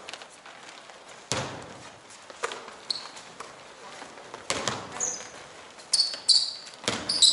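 A basketball thudding on an indoor court floor, about four hits a second or two apart, with short high-pitched squeaks of sneakers on the floor in between.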